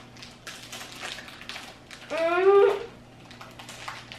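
Plastic cheese packaging crinkling as it is worked open, with a brief rising whine-like voiced sound about two seconds in.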